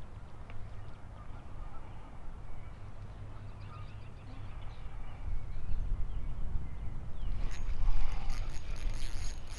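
Wind rumbling on the microphone while a spinning rod is cast and worked, then louder rubbing and clicking handling noise from about seven and a half seconds in as the rod and reel are moved close to the microphone.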